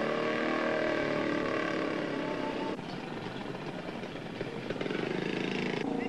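Busy street traffic with small motorcycle engines running steadily. The sound changes abruptly about three seconds in and again near the end.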